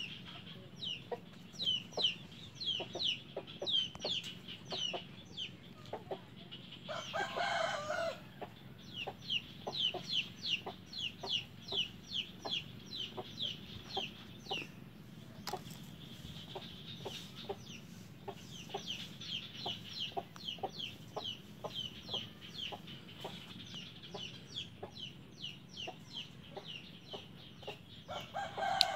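Chickens calling: a steady run of short, high, falling peeps, about two to three a second, over soft low clucks. A louder call lasting about a second comes about seven seconds in, and another near the end.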